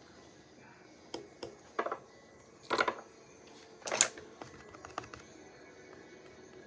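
Hand-handling sounds: a few irregular sharp clicks and taps, loudest in two short clusters about three and four seconds in, with faint ticks after.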